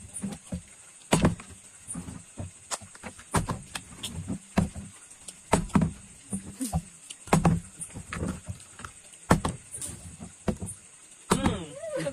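Repeated irregular knocks and taps on a wooden tabletop as a small plastic bottle is flipped and lands, about one or two a second. A short laugh or voice near the end.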